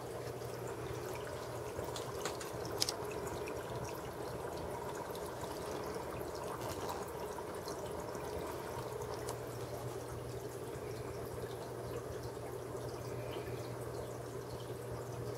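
Aquarium filter return trickling and splashing steadily into an open-top fish tank, over a low steady hum.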